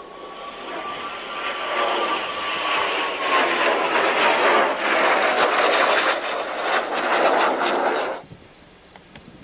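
Blue Angels F/A-18 Hornet jets passing in formation: a jet roar builds over a few seconds and turns crackly, with a whine slowly falling in pitch, then cuts off abruptly about eight seconds in.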